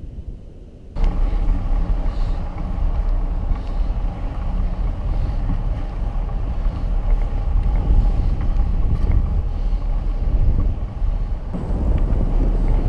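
Wind buffeting a bike-mounted camera's microphone as a fat-tire bike rides across sand: a loud, low rumble that starts suddenly about a second in, with a faint steady hum above it.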